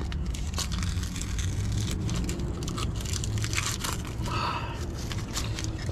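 Rapid, irregular crinkling and rustling handling noise over a low steady hum.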